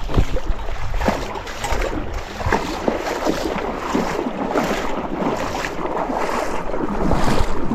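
Fast-flowing river water rushing and splashing around a hiker's legs as he wades across barefoot, with wind buffeting the microphone.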